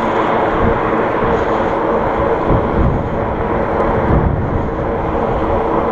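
The fat tyres of a Surly Moonlander fat bike humming steadily on asphalt at riding speed, mixed with wind rush over the camera microphone.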